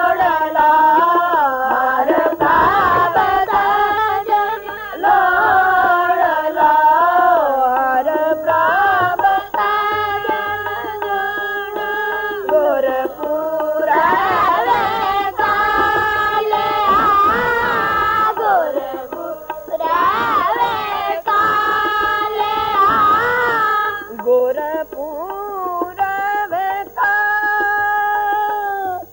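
Kirtan: a group of boys singing a Sikh hymn together to harmonium accompaniment, the melody gliding and ornamented over steady held harmonium notes.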